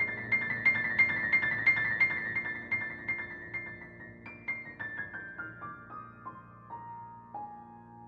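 Piano playing instrumental Christmas music: quick repeated high notes over sustained lower chords, then a line of single notes stepping down in pitch and slowing toward the end.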